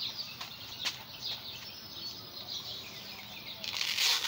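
Birds chirping with many short, high calls. Near the end comes a brief, louder burst of rustling noise.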